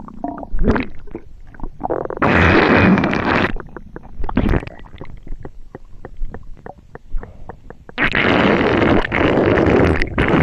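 Human stomach and gut grumbling: short gurgles and pops, a long loud rumble about two seconds in and a longer one near the end, with a run of quick faint ticks between them.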